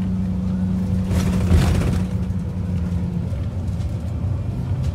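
Express bus driving on a highway, heard from inside the cabin: a steady low engine and road drone, with a loud rushing whoosh about a second and a half in. The drone's steady hum note drops out a little after three seconds.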